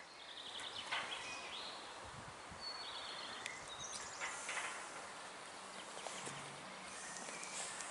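Outdoor ambience: birds chirping over a steady background hiss.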